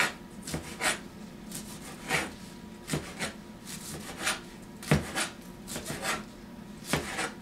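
Kitchen knife chopping kale on a cutting board: irregular chops of the blade against the board, a little under two a second, the strongest about five seconds in.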